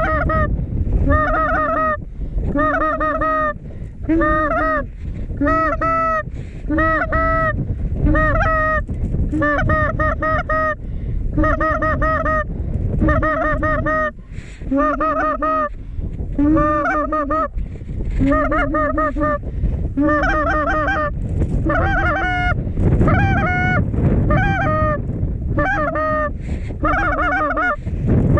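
Goose honks repeated in a steady run about once a second, over heavy wind rumble on the microphone.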